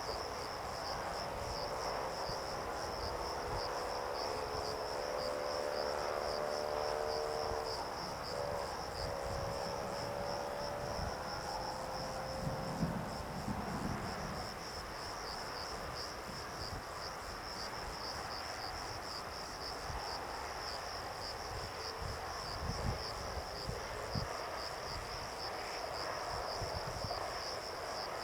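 Insects chirping in a steady, high, fast-pulsing drone. For about the first ten seconds, a distant engine hum with several tones sinks slightly in pitch and fades out.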